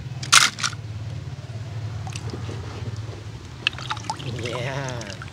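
A toy car splashing into a tub of water, the loudest sound just after the start, followed by water trickling and sloshing as the toys are handled. A steady low hum runs underneath, and a wavering, warbling tone comes in near the end.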